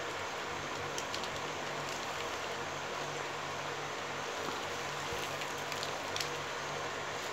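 Steady hiss with a faint low hum, broken by a few light clicks and rustles of plastic basket-weaving wire strands being pulled tight into knots, the sharpest about six seconds in.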